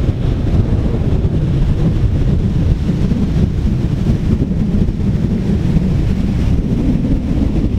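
Strong wind buffeting the microphone in a steady low rumble, over rough surf breaking on the beach, both whipped up by an approaching hurricane.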